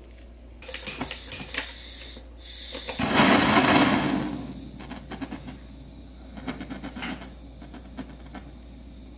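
Clicks and clatter as a butane blowtorch on its gas canister is handled, then a loud rushing whoosh about three seconds in that fades over a second or so, as the torch is lit.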